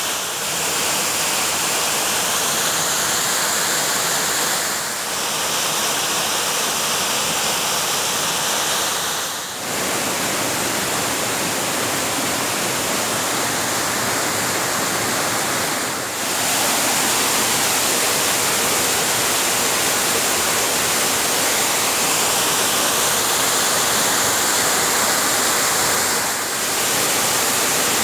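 Waterfall: a steady, loud rush of falling water, with four brief dips in level where the sound shifts slightly.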